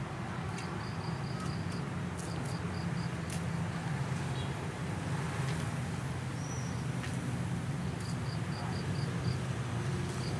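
A steady low rumble from the train standing at the platform, overlaid by a chirping insect that repeats short high pulses in runs of five or six, several times.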